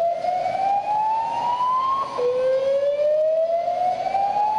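Hotel fire alarm sounding its alert tone: a slow rising whoop that climbs steadily in pitch for about three seconds, breaks off about two seconds in, and starts climbing again from the bottom.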